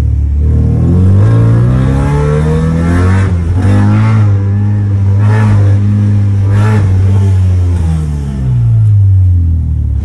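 Car engine running through a freshly fitted exhaust cut-out, heard from inside the cabin: the engine note rises as the car accelerates, holds for a few seconds with a few short crackles, then falls away as it slows near the end.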